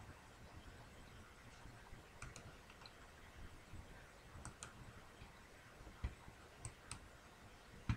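Faint clicks from a computer: a few scattered sharp clicks, some in quick pairs, over quiet room tone, with a dull thump about six seconds in and a louder one at the very end.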